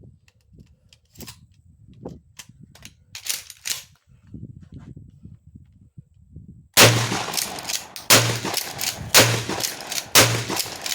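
Mossberg 500 12-gauge pump-action shotgun with a 28-inch barrel firing four shots in quick succession, about a second apart, starting about two-thirds of the way in. A few light clicks of handling come before them.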